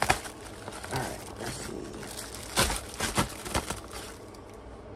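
Plastic bubble mailer crinkling and tearing as it is slit open with a folding knife, a gray Benchmade Bugout whose blade needs sharpening. A sharp click right at the start, and a run of crackling snaps a little past the middle.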